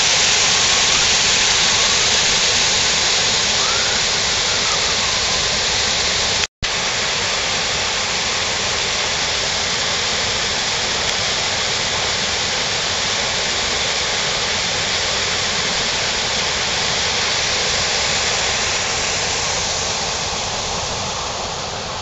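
Water gushing through an opened paddle in a wooden canal lock gate into the lock chamber: a loud, steady rush. It drops out for an instant about six seconds in, then carries on, easing a little near the end.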